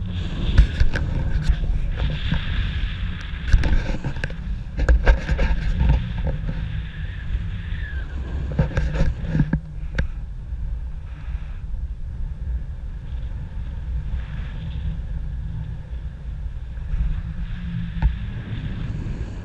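Wind buffeting the camera microphone in paragliding flight: a heavy, unsteady low rumble with a hiss above it, plus scattered clicks and rustles in the first half.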